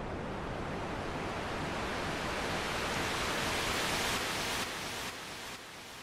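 Synthesized white noise from FL Studio's 3xOsc, played through an automated low-pass filter that opens so the hiss grows steadily brighter and louder, with reverb. About four and a half seconds in the noise cuts off and delay echoes repeat about twice a second, each quieter than the last.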